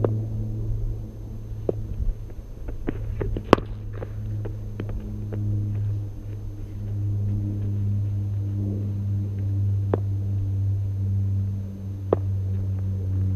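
Cricket bat knocking against a ball in a practice net: a few sharp knocks, the loudest about three and a half seconds in, over a steady low hum.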